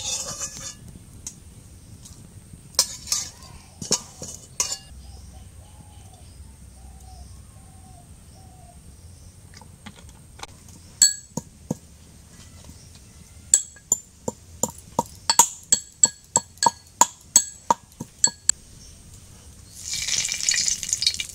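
Metal utensils clinking on an aluminium kadai: scattered clinks, then a quick run of sharp ringing clinks about three a second in the second half. Near the end, hot mustard oil starts to sizzle as bay leaves drop into it.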